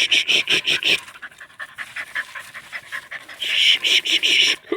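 Dog panting hard and fast, several quick breaths a second, loudest in a spell at the start and another near the end: a dog worn out from the hunt.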